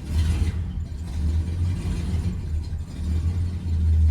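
1946 Hudson Commodore Eight's flathead straight-eight engine catching right at the start with a brief burst, running unevenly for a few seconds, then settling into a steady idle near the end.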